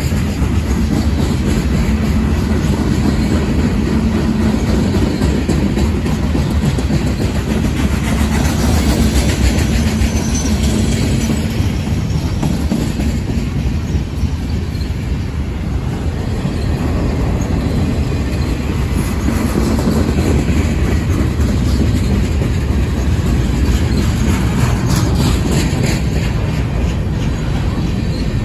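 Freight cars of a manifest train, boxcars and then covered hoppers, rolling past close by. The steel wheels on the rails make a loud, steady noise.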